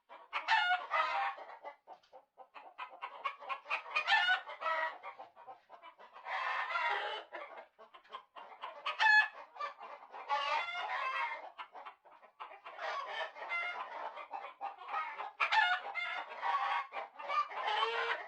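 A flock of birds calling, many short overlapping calls coming in bursts with brief lulls between them.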